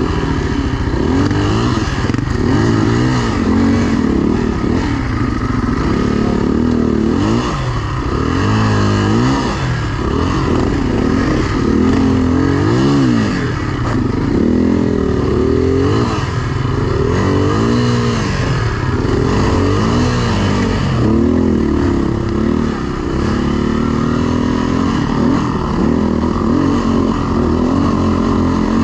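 HM Locusta enduro motorcycle engine revving up and down over and over, a rise and fall in pitch about every one to two seconds, as the bike is ridden over a rough mule track.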